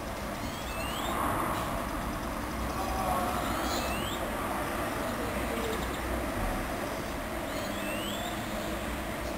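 Hoover washing machine running a wash cycle with a duvet inside: a steady churning noise.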